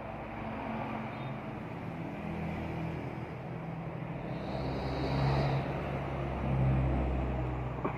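Motor vehicle engine running nearby: a steady low hum that grows louder around five to seven seconds in.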